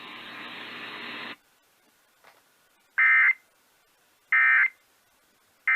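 Weather-radio hiss that cuts off just over a second in, then three short bursts of EAS digital data tone about a second and a half apart: the SAME end-of-message code that closes an emergency alert broadcast.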